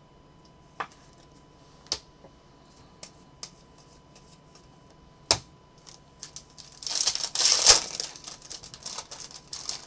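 A few sharp clicks of trading cards and a plastic card holder being handled. Then, from about seven seconds in, the loud crinkling tear of a foil trading-card pack being ripped open.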